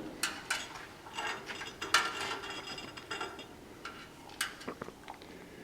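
Parrot's beak taking and cracking a sunflower seed: a series of irregular sharp clicks and crunches.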